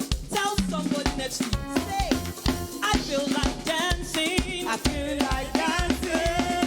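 Live praise-and-worship band music, a drum kit keeping a steady beat under a bending, wavering melody line.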